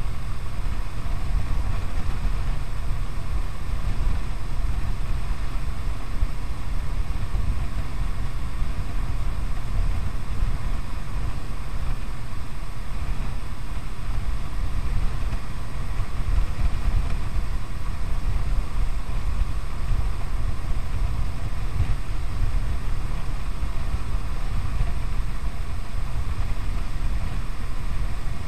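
Steady wind rush buffeting a chest-mounted action camera's microphone at highway speed, over the steady drone of a Kawasaki W800's air-cooled parallel-twin engine.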